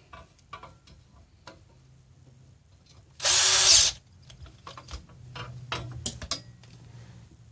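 A power drill-driver runs for just under a second, driving a bolt with a washer into the stool's pedestal and legs. This is followed by a run of light clicks and knocks from the metal parts being handled.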